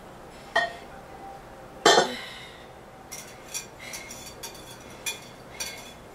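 A whisk and a mixing bowl clinking against a ceramic crock pot insert: a sharp knock just before two seconds in, the loudest sound, then light clinks about twice a second as the whisk scrapes cream soup out of the bowl into the pot.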